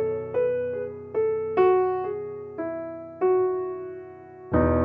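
Background music: a piano plays single struck notes in a slow, falling melody, each note fading before the next, and a fuller sustained chord with a low bass comes in near the end.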